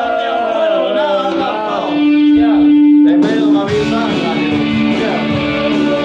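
Music: a voice singing to guitar, holding one long note about two seconds in before the guitar and voice carry on.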